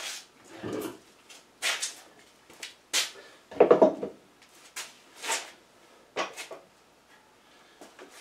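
Scattered knocks, clatters and scrapes of handling a red 20-gallon upright air compressor and its fittings, with a heavier clunk about three and a half seconds in.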